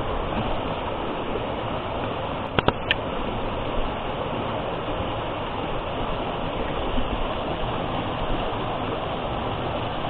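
Steady rush of a small waterfall, thin streams of water falling down a mossy rock face and splashing into a pool. A few sharp clicks come about two and a half seconds in.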